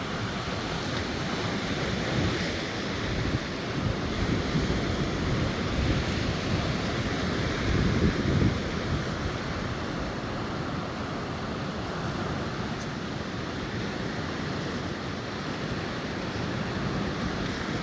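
Stormy sea surf breaking on the shore, with wind buffeting the microphone; a gust is loudest about eight seconds in.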